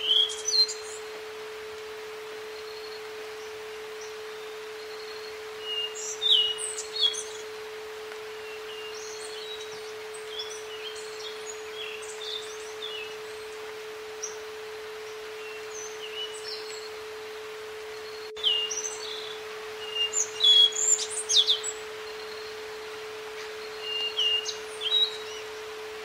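A steady pure tone near 450 Hz, a brainwave-entrainment tone, sounds throughout over a nature recording of wild birds chirping and singing with a light background hiss. The birdsong comes in short bursts, busiest about six seconds in and from about eighteen seconds on.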